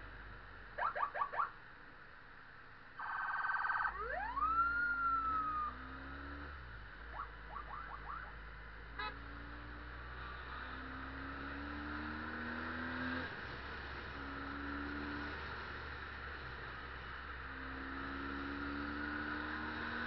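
Police-style vehicle siren: four quick chirps, then a buzzing horn blast and one whoop that rises and then falls, with a few more short chirps a few seconds later. The motorcycle's engine and traffic noise run underneath.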